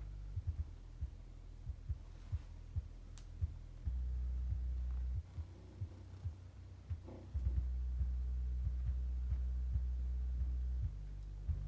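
Deep bass played through a pair of original woofers from a 1993 Citroën Xantia: a steady low hum with frequent short thumps. The hum gets louder about four seconds in, thins out for a couple of seconds, then comes back loud for about three seconds before falling back near the end.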